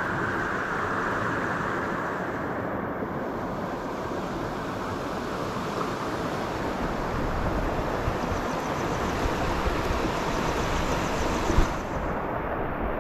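River water running steadily over rocks, with a short knock near the end.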